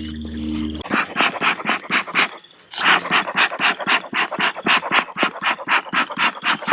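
Rapid panting, about five breaths a second, with a short pause about two and a half seconds in.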